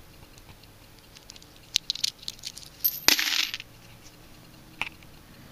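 Dimes clinking as a freshly opened roll is handled: a few light clicks, then a louder metallic clink with a short jingle about three seconds in, and one more click near the end.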